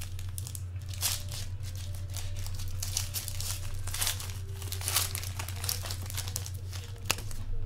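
Foil trading-card pack wrapper crinkling and tearing in the hands as it is pulled open, in irregular rustles over a steady low hum.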